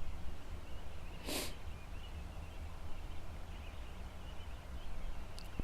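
A horse blows out once through her nostrils in a short snort about a second in, over a low steady background rumble.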